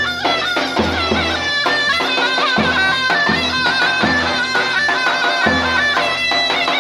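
Zurna and davul playing a folk tune: the reed-blown zurna carries a high, ornamented melody over regular beats of the big double-headed davul drum.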